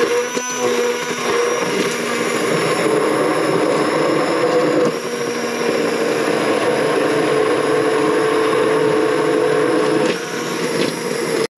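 Immersion blender running in a pot of cooked strawberries and rhubarb, purée-ing the fruit. The motor holds a steady hum over the churning of the thick mixture, dips briefly about halfway, and stops suddenly just before the end.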